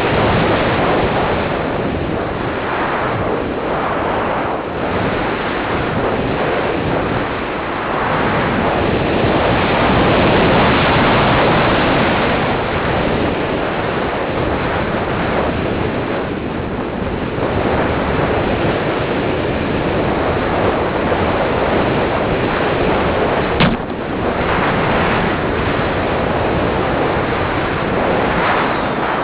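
Airflow rushing over the onboard camera microphone of a foam radio-control slope glider in flight, steady but swelling and easing. One short click comes late on.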